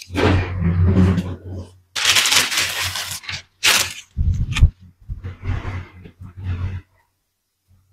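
Plastic packaging crinkling and rustling in bursts over a low hum, stopping abruptly several times.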